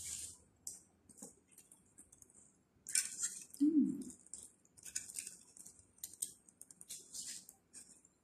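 Paper napkins and food wrappers rustling and crinkling in short, irregular bursts as they are handled at a meal, with one brief vocal hum about four seconds in.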